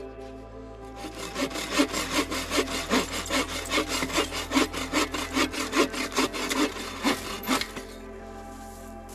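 Hand saw cutting through wood in quick, even back-and-forth strokes, starting about a second in and stopping shortly before the end, over steady background music.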